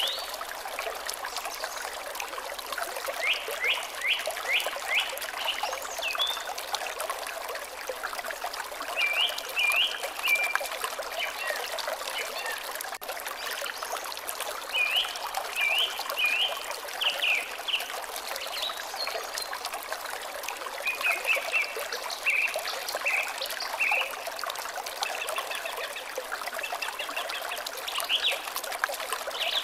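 A stream trickling steadily, with a bird singing short phrases of quick repeated notes every few seconds.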